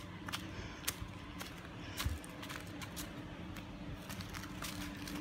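Footsteps on steps covered in dry fallen leaves, a short crunch at each step, about two a second.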